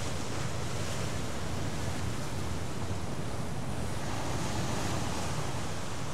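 Steady wash of sea surf with wind.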